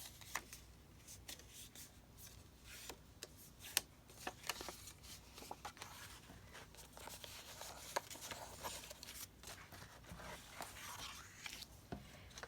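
Paper pieces being handled and set in place: scattered light taps and soft rustling, with a slightly longer stretch of rustling a little before the end.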